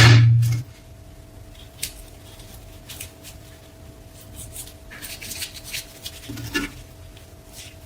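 A loud noise with a low hum cuts off suddenly under a second in. After that come light, scattered clicks, taps and rubbing from small parts being handled, over a faint steady tone.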